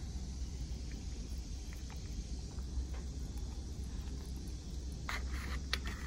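A metal fork scraping and clicking against a plastic bowl of rice and chicken, faint ticks at first and a short burst of scraping about five seconds in, over a steady low background rumble.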